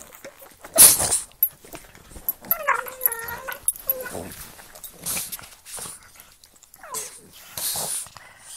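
A pug and a Boston terrier play-fighting mouth to mouth, making irregular play noises. These are short, breathy blasts (the loudest about a second in) and a wavering, pitched whining cry about three seconds in.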